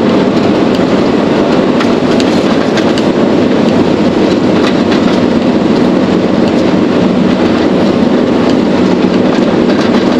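Cab interior of a Mercedes-Benz Actros SLT heavy-haulage truck on the move: a steady engine drone mixed with road and tyre noise, with scattered light clicks and rattles from the cab.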